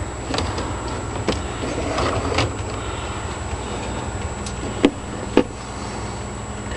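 Light knocks and clicks of eggs and incubator parts being handled, two sharper taps about five seconds in, over a steady low hum.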